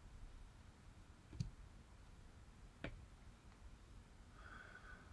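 Near silence with two faint computer-mouse clicks, about a second and a half in and about three seconds in.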